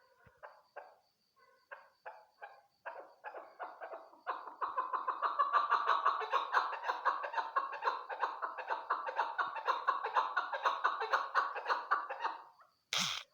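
Chukar partridge calling: spaced chuck notes that quicken about four seconds in into a fast, loud, continuous chattering run, which stops about twelve seconds in. A brief loud noise sounds near the end.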